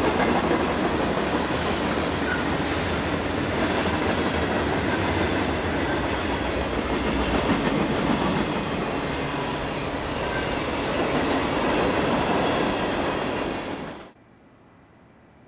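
Freight train of tank cars, hopper cars and boxcars rolling past close by, a steady dense rumble of wheels on rails. It cuts off abruptly about fourteen seconds in.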